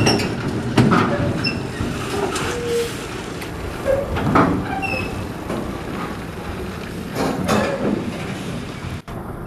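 Diesel engine of a container tractor-trailer running as the truck passes close and drives away, fading slowly, with short high squeaks mixed in.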